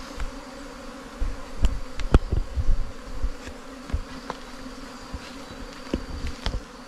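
A swarm of honey bees buzzing steadily around their dug-out underground nest and the hive box set at its mouth, with several sharp clicks, the loudest about two seconds in.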